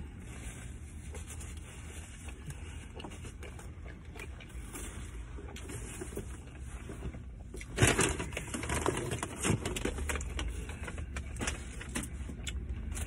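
Eating and handling of a paper-wrapped Subway sandwich: quiet chewing and faint clicks, then from about eight seconds in a louder stretch of crinkling and rustling of the wrapper, over a low steady hum.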